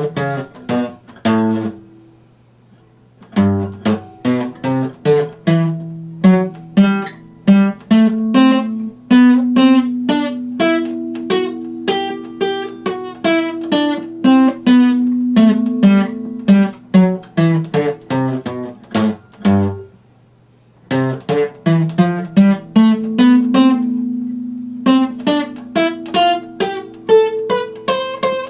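Epiphone acoustic guitar played solo, a quick run of plucked notes and chords left to ring. The playing stops briefly twice, about two seconds in and again about two-thirds of the way through.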